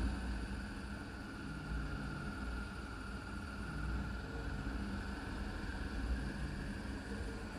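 Motorcycle engine running steadily under way, a low rumble with a faint whine above it, and wind noise on the microphone.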